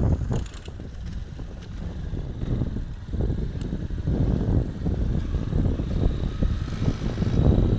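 Motorcycle ride: a low, uneven rumble of engine and wind buffeting the microphone, swelling and easing, loudest near the end.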